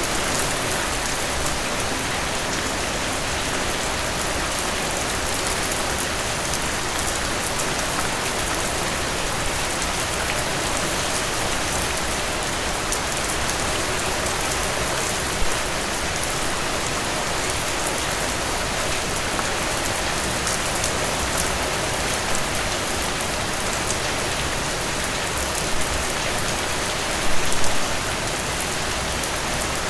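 Steady rain falling, a dense even patter of drops on a surface. A few brief louder hits stand out, with a short cluster of them a couple of seconds before the end.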